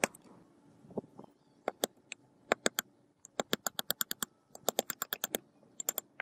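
A small hammer tapping on the metal action of a vintage double-barrel shotgun: several quick runs of light, sharp metal taps, about eight a second at their fastest, seating a part into the action.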